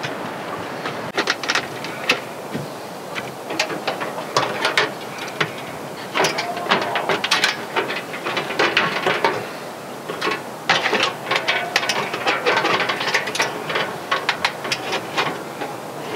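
Irregular metallic clicks, clanks and rattles as a Coleman Triton two-burner camp stove is handled on a steel tray: its lid and hinged wind-shield side panels are swung open and clicked into place.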